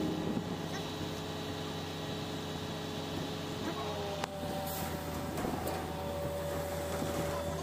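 Steady low engine hum with faint voices, and one sharp click a little over four seconds in.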